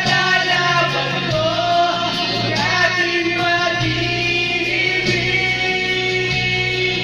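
A man singing a Tagalog love ballad into a karaoke microphone over the karaoke machine's backing track.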